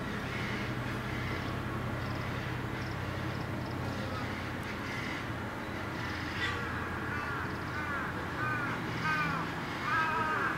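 A crow cawing over a steady low hum: a run of short, arched, repeated calls that starts about six seconds in and grows louder near the end.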